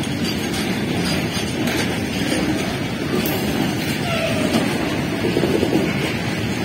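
BRNA bogie flat wagons loaded with rails rolling past, their wheels running steadily on the track.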